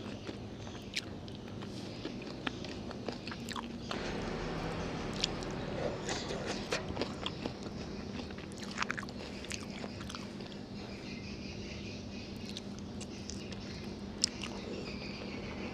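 A person eating close to the microphone: chewing and biting, with scattered short wet clicks and smacks of mouth and food. The food is saucy fried noodles with chicken on the bone.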